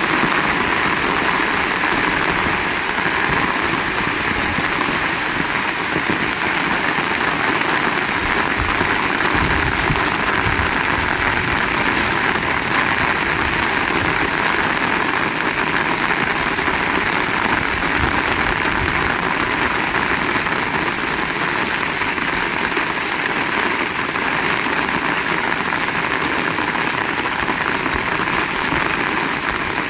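Heavy rain falling hard and steadily, a dense, even hiss with no let-up.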